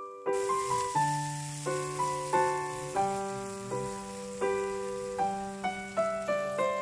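Background piano music: a slow melody of single notes over held low notes, with a faint hiss of frying oil beneath it.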